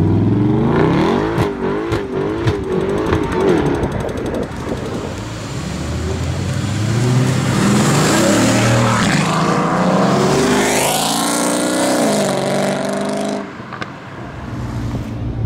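Supercar engine revving up and down, then accelerating hard with its pitch climbing. The sound cuts off abruptly near the end.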